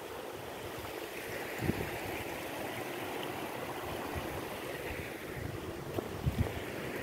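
Shallow river water running over rock slabs, a steady rushing. A few brief low thumps, one near the start and a couple near the end, sound over it.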